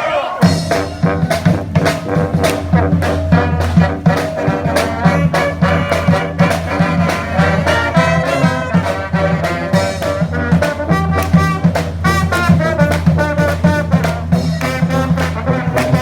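Brass band playing: trumpets and trombones over a low bass line and drums, which come in about half a second in and keep a steady beat.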